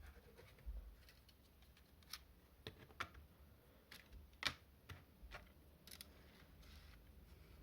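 Scattered light clicks and taps of small plastic parts being handled, about a dozen in all, the sharpest about four and a half seconds in.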